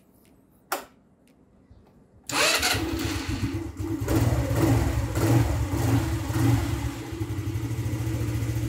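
A SYM Jet Power 125 scooter's single-cylinder engine is started on a freshly fitted battery. There is a click, then the engine catches about two seconds later and idles, with a few brief throttle blips in the middle.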